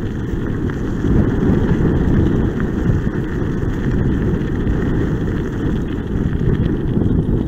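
Steady rumbling wind noise on the microphone mixed with the kickbike's wheels rolling fast over a gravel path.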